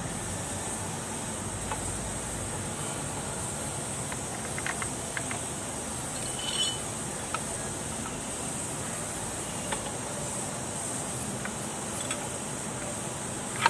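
Faint scattered metallic clicks as a propeller shaft is worked back out of its splined housing, over a steady background hiss, with a sharper click at the very end.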